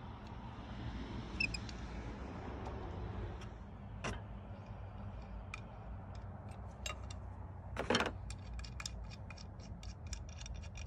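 Small metal clicks and knocks of an Allen wrench and limb bolt being worked in a recurve bow's riser while a limb is fitted. They are scattered at first, with the loudest knock about eight seconds in, then come as a quick run of small clicks near the end, over a steady low rumble.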